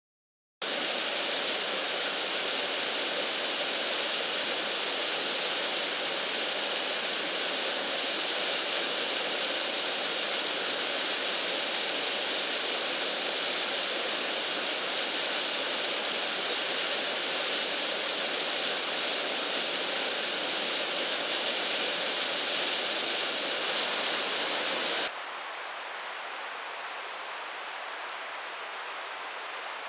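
Small mountain waterfall rushing steadily in a loud, even roar of falling water. About 25 seconds in it cuts off abruptly to a much quieter steady hiss.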